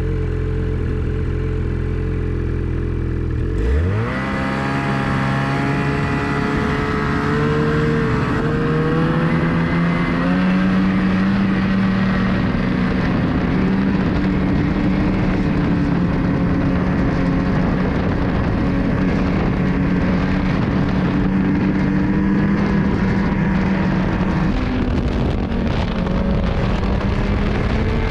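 Ski-Doo snowmobile's 600R E-TEC two-stroke engine running steadily at low revs, then revving up sharply about four seconds in as the throttle is opened. It then holds high revs under load, its pitch drifting slightly up and down.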